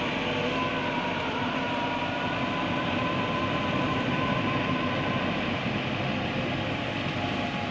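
Backhoe loader's diesel engine running steadily, with a faint steady whine over the engine noise.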